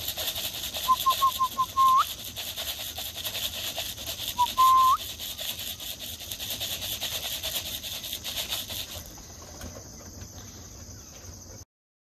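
A person whistling to call roller pigeons in to their kit box: four short whistles, then a longer note that flicks up at the end, and about three seconds later one short whistle and another long note with an upward flick. A pulsing insect chorus runs underneath until about nine seconds in, and the sound cuts off near the end.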